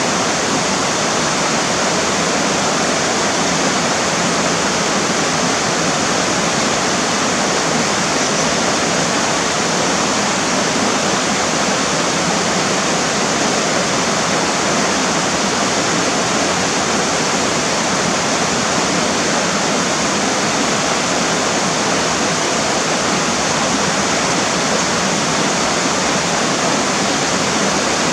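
Mountain river flowing, a steady rushing of water over rocks.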